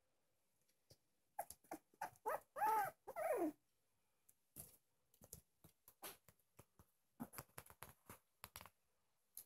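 Bolonka puppy whimpering: a few short cries about a second and a half in, then two longer whines, the last one falling in pitch. Scattered soft clicks and rustles follow.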